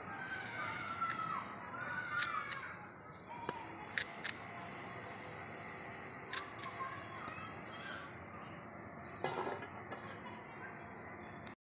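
A carrot being cut on a boti, a curved floor-mounted blade, with a handful of sharp crunching cuts a second or more apart. Near the end comes a louder knock as the cut pieces go onto a steel plate.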